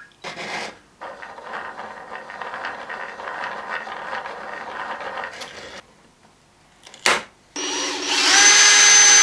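Cordless drill running from about three-quarters of the way through, drilling into the small wooden crank handle; its motor pitch rises near the end and then holds steady. Before it comes a scratchy rubbing noise lasting several seconds, and a single sharp click.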